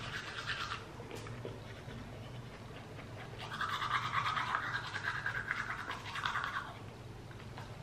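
Manual toothbrush scrubbing teeth in quick back-and-forth strokes: a short burst at the start, then a longer, louder stretch from about three and a half seconds in to nearly seven, over a steady low hum.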